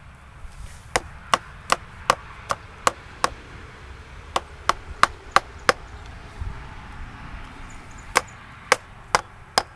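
A mallet striking a wood chisel driven into a log: sharp knocks, about two or three a second, in three runs with short pauses: seven, then five, then four near the end.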